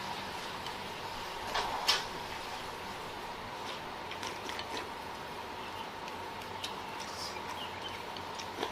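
Eating at the table: a few light clicks of a spoon or chopsticks against a bowl, with one louder brief sound a little under two seconds in, over a steady faint hum.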